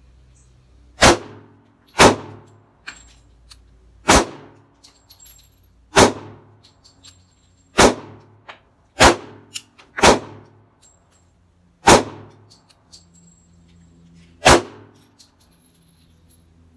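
Sarsılmaz K2-45 pistol firing .45 ACP at a slow, deliberate pace: nine single shots one to two and a half seconds apart, each with a short echoing tail.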